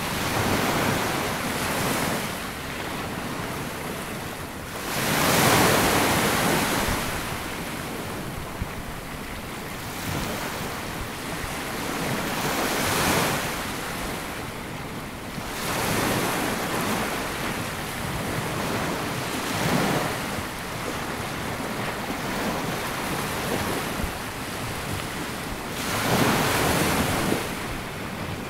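Small sea waves breaking and washing up a sandy beach, in repeated surges every few seconds, the largest about five seconds in and near the end, with a light wind on the microphone.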